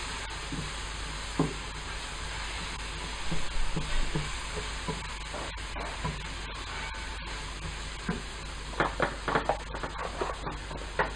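Diced vegetables sizzling in a frying pan as a wooden spatula stirs and scrapes through them, with scattered light knocks of the spatula against the pan, most frequent near the end.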